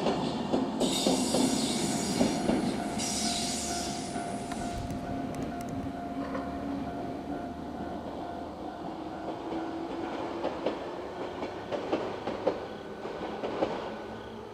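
A two-car 103 series electric train running past, its wheels clattering rhythmically over the rail joints. The sound grows gradually fainter as the train moves away.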